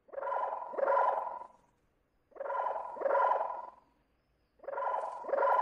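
Dog barking: three pairs of barks, each pair about two seconds after the last.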